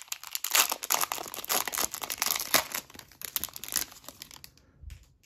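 Foil-lined Upper Deck hockey card pack wrapper being torn open and crinkled by hand: a dense crackle of tearing and crumpling that dies away after about four seconds.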